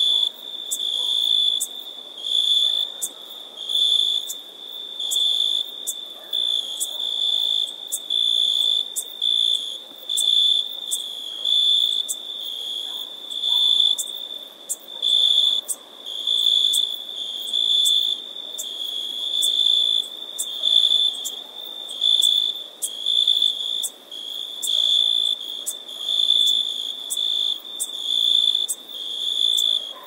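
Cricket chirping: a high, steady trill that swells and fades about once a second.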